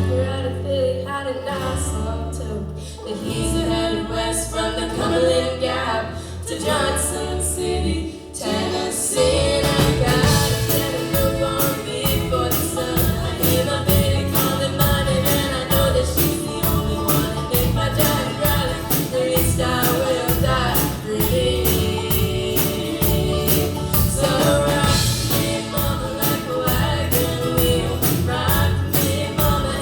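A song sung over instrumental backing, quieter at first, then the full band comes in with a steady beat about eight seconds in.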